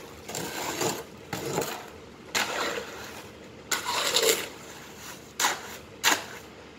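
Steel hoe scraping and chopping through wet cement mix in a metal wheelbarrow tray: about six strokes at irregular intervals, the last two short and sharp.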